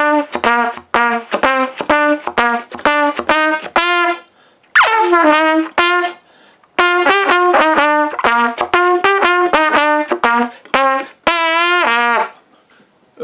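Solo trumpet playing a simple melody in jazz phrasing: runs of short, separately tongued notes in a few phrases, with a longer note slid into about five seconds in and a long note with vibrato near the end.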